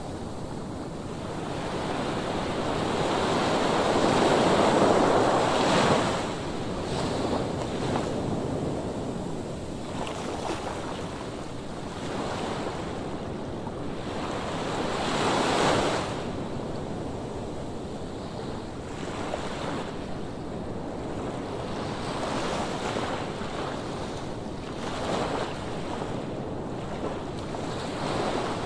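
Ocean surf: waves surging and breaking on the shore as a steady wash. The wash swells to a loud peak about five seconds in, again near the middle, and more softly later on.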